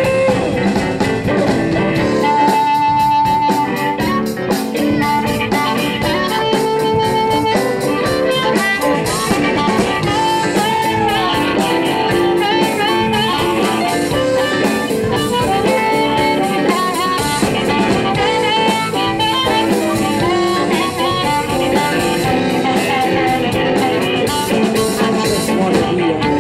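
Live electric blues band in an instrumental break: a harmonica plays a lead with held and bending notes over electric guitar and a drum kit.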